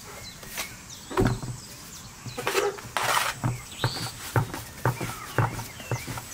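Pide dough being cut and then kneaded by hand on a floured board: a soft thud early on, then from about halfway through a regular run of soft thumps, about two a second, as the dough is pressed and folded. Birds chirp faintly in the background.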